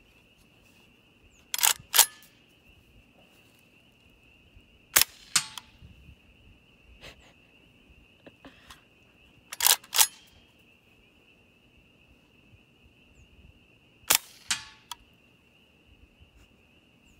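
Rifle firing five suppressed shots of 5.45x39 subsonic ammunition through an RMS2 HOPAII suppressor. The first two shots come in quick succession and the rest follow a few seconds apart, some trailed by a fainter knock.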